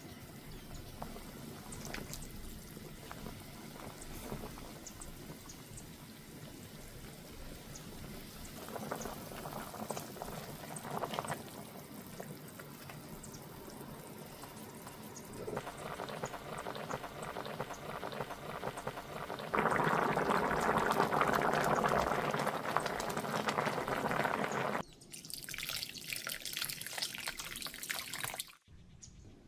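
Water running and pouring in a kitchen, in several stretches, loudest for about five seconds past the middle, with a brighter hiss after it that cuts off just before the end.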